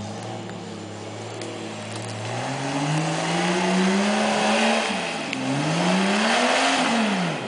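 Jeep Cherokee's engine revving under load as it drives off-road: held steady at first, climbing from about two seconds in, dipping briefly past the middle, rising again and dropping away at the end.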